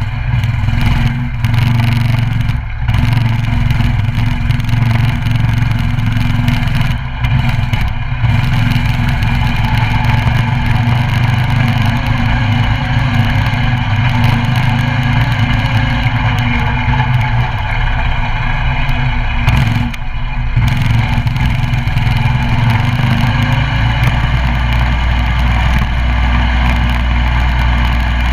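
Coleman CT200U mini bike's 196cc single-cylinder four-stroke engine running under throttle while being ridden, with a few brief dips as the throttle is eased off. The engine note settles lower for the last few seconds.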